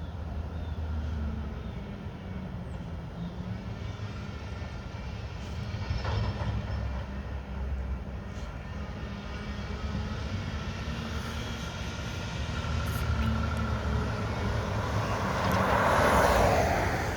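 Diesel engine of a Mack front-loader garbage truck with a McNeilus body running as the truck approaches, a steady low rumble, with a louder rushing swell near the end.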